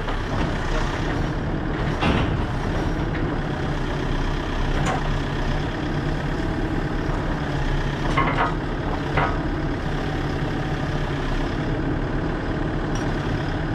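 A 6.5-ton excavator's diesel engine running steadily, with a few sharp metal clanks, about 2, 5, 8 and 9 seconds in.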